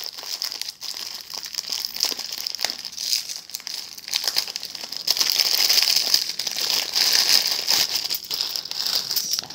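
Plastic wrapper of a sotanghon noodle packet crinkling as it is handled and opened, with the dry, brittle vermicelli crackling as it is pulled apart: a dense crackle of many small clicks, busier in the second half.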